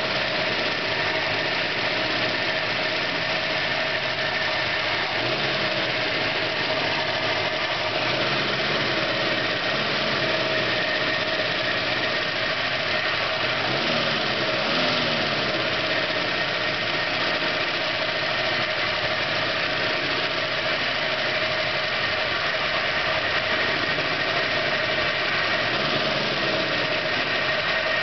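1968 Ford Mustang California Special's original V8 idling steadily on its first run after years of sitting, the idle speed rising and dipping slightly now and then.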